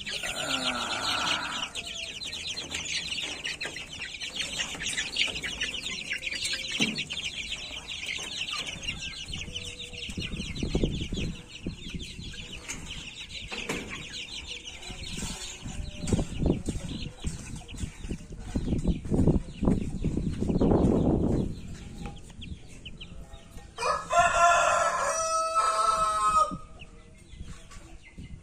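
Month-old Pama chicks peeping densely in their cage, with rumbling handling knocks while one is caught. Near the end comes a single long, loud chicken call lasting a couple of seconds.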